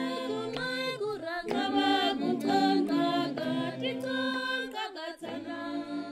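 A choir singing in harmony without instruments, with long held notes under moving sung lines.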